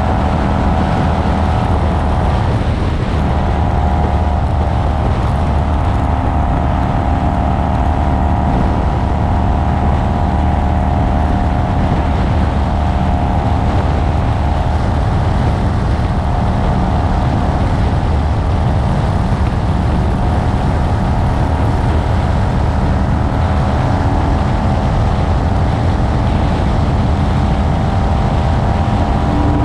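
Kawasaki Vulcan 900's V-twin engine running steadily at highway cruising speed, with wind and road noise on the helmet or bike-mounted camera's microphone.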